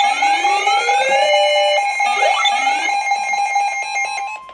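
Electronic emergency alert signal: a loud, fast-pulsing steady tone with rising sweeps over it twice. It cuts off about four seconds in, and a quieter steady tone takes over.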